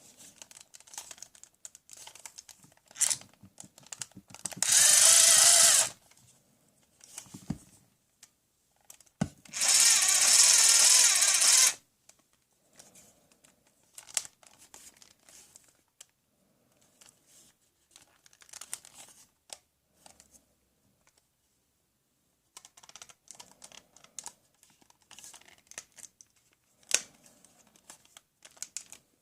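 Battery-powered toy power tool whirring in two bursts, the second longer, among scattered clicks and rattles of plastic toy tools being handled.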